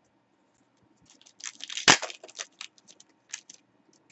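Trading cards and a foil card-pack wrapper being handled: a run of crinkling crackles starting about a second in, with one sharp knock just before two seconds.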